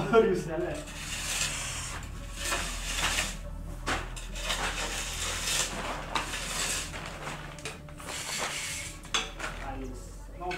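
A trowel scraping and spreading cement mortar on a concrete floor bed, with irregular scrapes and light clinks of the tool.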